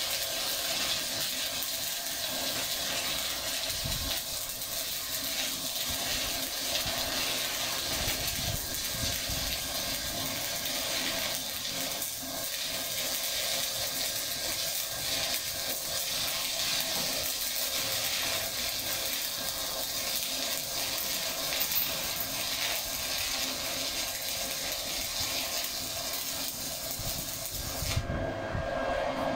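Stick (SMAW) welding arc crackling and sizzling steadily as a stringer bead is run on flat steel plate. Near the end the high hiss drops away.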